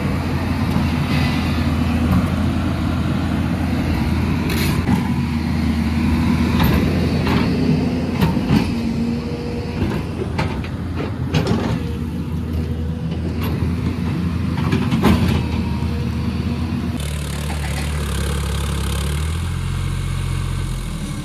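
A motor vehicle's engine running steadily, with scattered knocks and rattles. The engine note changes a few seconds before the end.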